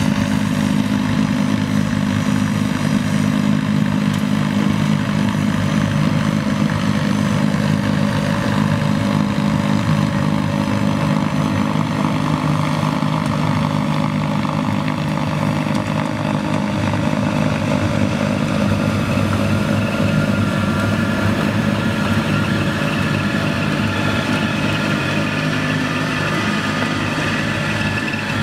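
Tractor-driven Schulte SDX-110 snow blower working under load: the tractor's diesel engine and the blower's impeller running as one steady drone, with the rushing hiss of snow blown up the chute into a dump truck. A higher whine comes in about two-thirds of the way through and rises slightly.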